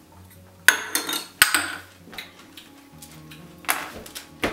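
Small shot glasses knocked down on a stone countertop, giving a few sharp clinks and knocks about a second in and again near the end, over steady background music.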